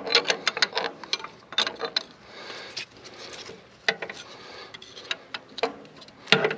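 Ratchet spanner clicking in short, irregular runs as a fitting is worked with it, with a few sharp metal clicks between.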